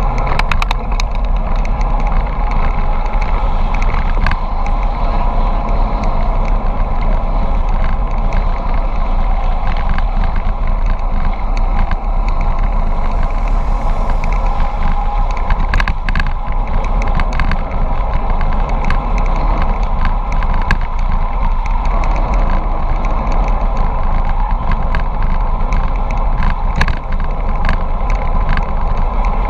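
Steady wind rush and road noise on a bicycle-mounted camera during a fast downhill run, heavy in the low end, with scattered clicks and rattles from the bike over the road surface.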